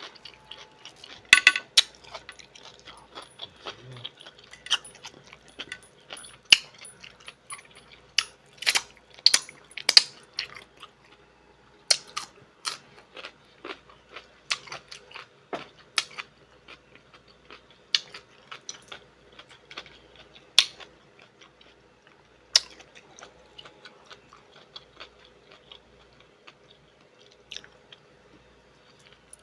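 A person chewing and biting food: irregular wet, crunchy clicks and crackles, some sharp and loud, scattered throughout.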